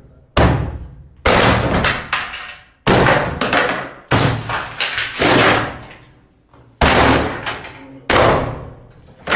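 A wooden door being kicked in from outside: about seven heavy blows a second or two apart, each ringing on, until its panel splinters and breaks.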